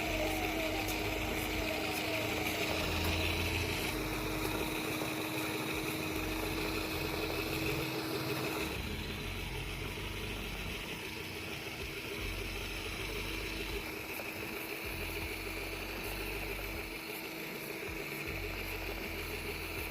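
A small DC motor driving a cardboard model road roller, running with a steady whine over a low rumble. The whine weakens about nine seconds in.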